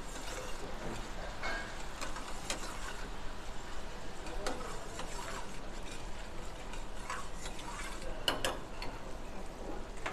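Steel ladle stirring thick cashew gravy in a stainless steel pan, scraping and clinking against the metal now and then, the loudest pair of clinks about eight seconds in. Under it the gravy simmers and sizzles softly on the flame.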